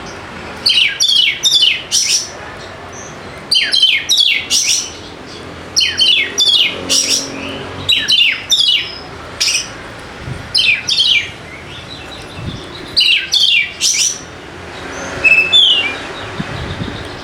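Oriental magpie-robin (kacer) calling in quick bursts of sharp, steeply falling notes, a burst every second or two, with softer notes near the end.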